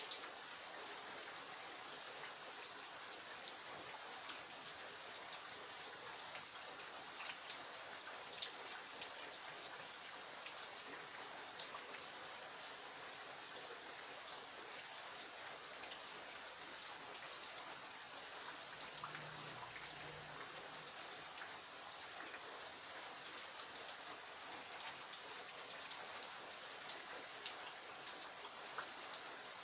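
Steady rain falling, with countless individual drops striking close by at an even, unchanging level.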